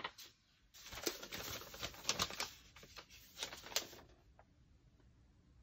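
Paper pieces being handled and shuffled on a desk: a quick run of light rustles and small taps that dies away after about four seconds.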